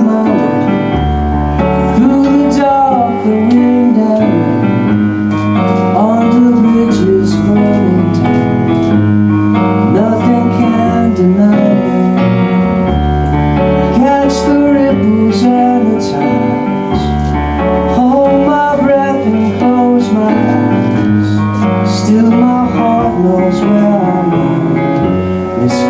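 Small live band playing a mid-tempo pop song: strummed guitars, bass and electric piano, with a male voice singing over them.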